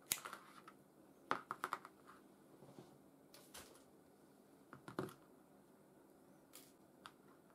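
Faint, scattered clicks and taps of two-lead wire being cut from its spool and small hand tools handled on a workbench, with a quick run of clicks about a second and a half in.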